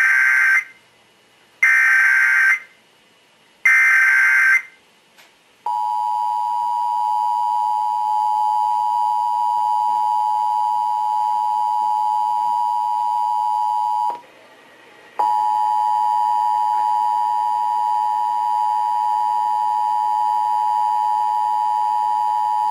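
Emergency Alert System broadcast tones. Three short buzzing bursts of the digital SAME header come first, then the steady two-note EAS attention signal, which breaks off for about a second partway through and resumes.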